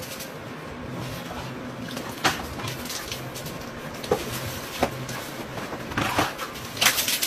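About five sharp knocks and clatters, spread over several seconds with the loudest near the end, over a steady low hum.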